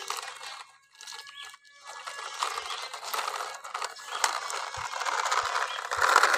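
Plastic toy dump truck pushed over grit-covered concrete, its wheels crunching and scraping the loose grit, in short pushes at first, then steadier and louder, cutting off suddenly at the end.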